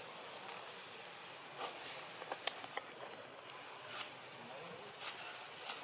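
Quiet outdoor ambience: a steady hiss broken by a few sharp clicks, the loudest about two and a half seconds in, with two faint high chirps.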